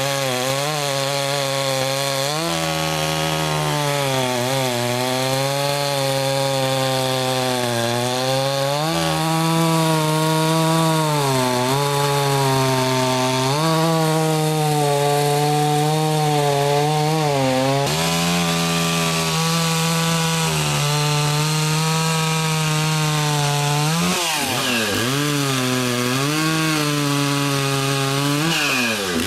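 Stihl 036 two-stroke chainsaw with an Oregon 72JGX skip-tooth chain running at high throttle while cutting through wood, its engine pitch sagging and recovering repeatedly as the chain loads up in the cut. Near the end the pitch drops sharply and swings back up twice.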